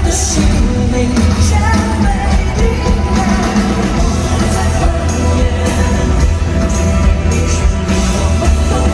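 Live concert music: a full band with a heavy low drum-and-bass beat and singing over it, loud and without a break.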